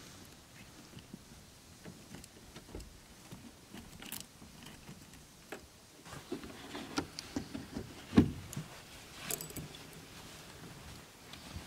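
Handling noise inside a car: rustling, light clicks and knocks as bedding and belongings are moved about, busier in the second half, with one louder thump about eight seconds in.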